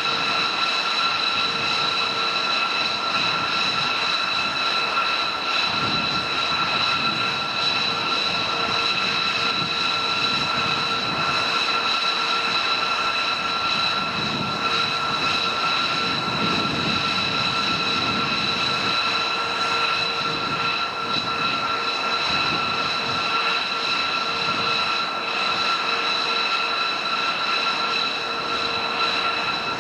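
Jet aircraft engines running steadily: a constant multi-tone whine over a rushing noise, with no change in pitch.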